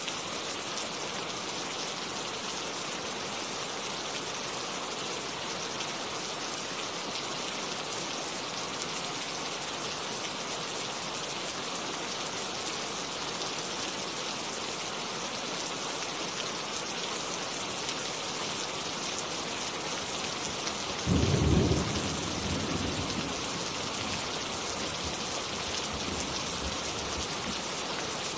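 Steady rain falling, an even dense patter. About three-quarters of the way through, a sudden short low rumble rises over it and fades within a couple of seconds.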